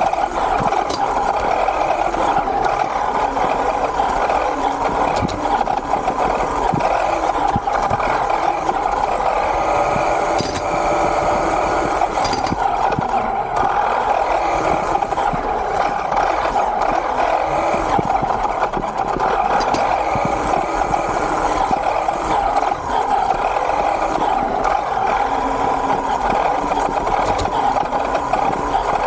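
Small electric RC car motor and drivetrain running steadily, a continuous whine with mechanical rattle that does not let up.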